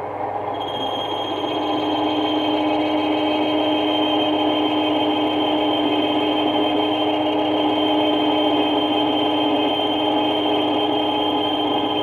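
Metal lathe running while parting off a brass workpiece: a steady machine hum with a high steady whine that comes in about half a second in, and the sound grows a little louder over the next second or two.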